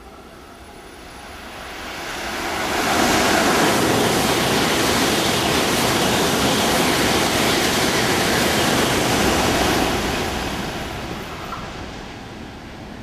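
700 series Shinkansen passing through the station at full speed without stopping. It is a loud rush of air and wheel noise that builds over about two seconds, holds steady for about seven seconds as the train goes by, then fades away.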